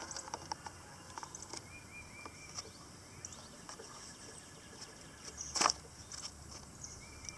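Quiet handling of a lawn mower's air filter housing: faint small clicks and one sharp snap about five and a half seconds in. A few short high chirps sound in the background twice.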